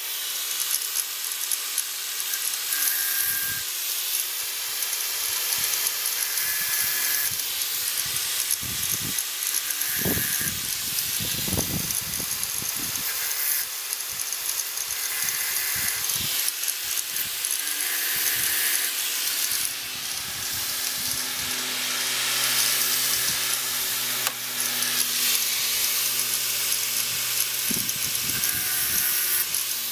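Angle grinder running, its thin disc grinding the cutters of a dull Stihl chainsaw chain to sharpen them: a steady high-pitched grinding hiss with brief shifts in tone as the disc moves along the teeth.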